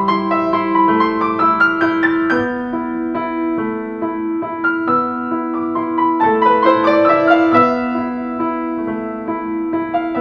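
Background piano music: a gentle melody of struck notes over sustained chords.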